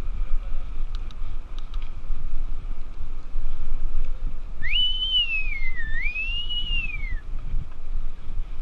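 A person whistling a short swooping phrase a little past halfway: the pitch rises, dips, rises again and falls away, over about two and a half seconds. Under it, wind buffets the microphone of a moving bicycle ride.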